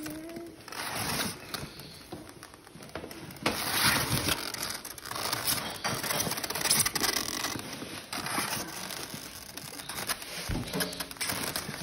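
Hands rummaging through live lobsters packed in a plastic-lined styrofoam box: irregular rustling, scraping and clattering of shells, cardboard dividers and plastic.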